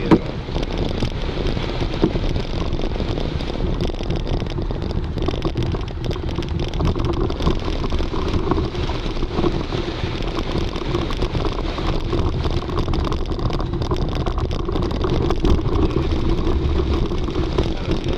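Off-road 4x4's engine running as it drives slowly over a rutted dirt track, heard from inside the cab: a steady drone and low rumble, with many small knocks and rattles from the bumpy ground and a couple of sharper knocks near the start.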